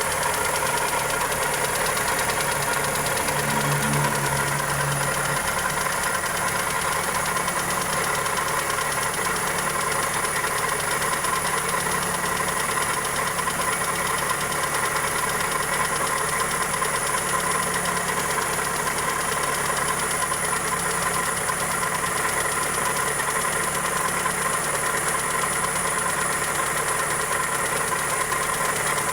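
Toyota 2E four-cylinder engine idling steadily with a ticking, knocking sound, which the owner suspects comes from the valvetrain or a connecting rod.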